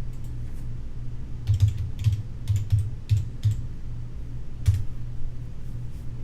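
Typing on a computer keyboard: a quick run of keystrokes in the middle, then one more keypress, over a steady low hum.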